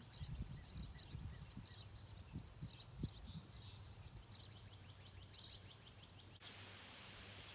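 Outdoor ambience of birds chirping repeatedly over a steady high insect drone, with scattered low thumps. About six seconds in, the drone and chirps stop abruptly, leaving an even hiss.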